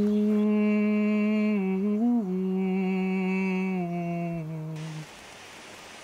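A low held note with many overtones, shifting a little in pitch and stopping about five seconds in. Just before it stops, a steady hiss from a ground firework fountain spraying sparks begins.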